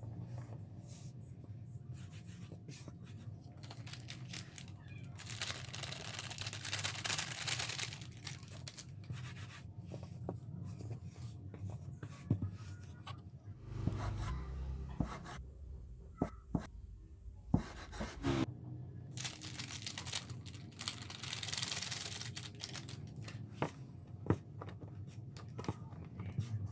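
Hand-cut noodle making: dry, flour-dusted dough rustling as it is folded and handled, then a chef's knife knocking sharply on a wooden cutting board as it cuts through the folded dough, and more rustling as the floury cut strands are tossed apart by hand.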